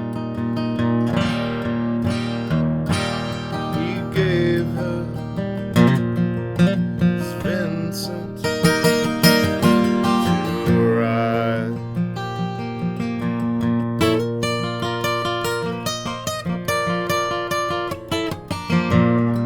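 Acoustic guitar playing an instrumental passage with no singing: quick picked notes over a steady bass line, with a few bent or slid notes in the middle.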